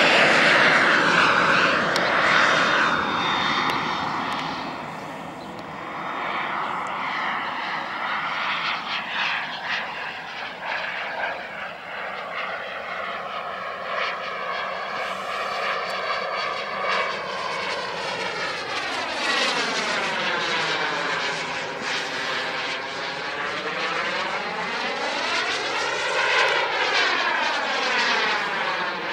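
Small gas-turbine engine of a radio-controlled de Havilland Vampire model jet, running as the model climbs away and flies overhead. The whooshing hiss is loudest at the start and eases within about five seconds. Over the second half it swells and fades with a sweeping, phasing tone as the jet passes.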